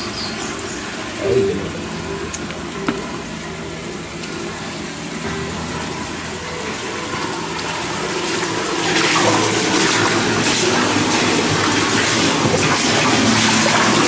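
Stream water rushing through a concrete culvert, with steps splashing through the shallow water. The rushing grows louder about nine seconds in.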